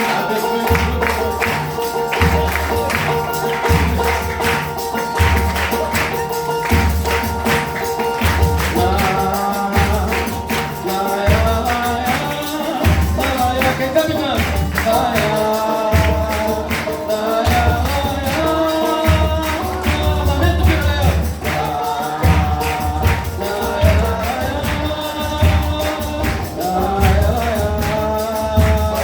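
Gospel group singing a praise song with instrumental accompaniment and a steady bass beat; the voices come in about eight seconds in after an instrumental opening of held chords.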